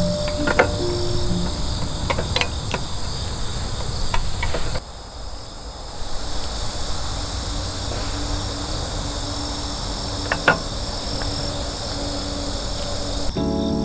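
A steady chorus of crickets trilling, with a few sharp clicks and knocks scattered through it. The chorus drops out briefly about five seconds in, then returns.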